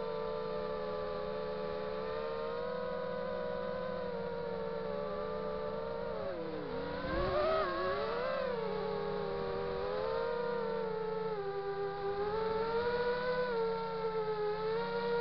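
Five-inch FPV racing quadcopter's brushless motors and propellers whining, heard from its onboard camera. The pitch dips and climbs again with the throttle about halfway through, and the level wavers near the end.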